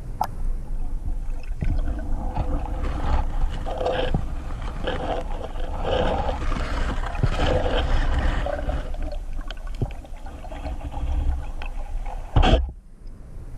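Water noise with irregular bubbling and gurgling around an underwater camera, with a sharp knock about twelve and a half seconds in.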